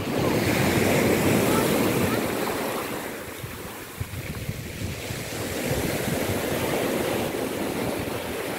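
Small sea waves breaking and washing up a pebble shore, one surge right at the start and a second, slightly softer one about six seconds in.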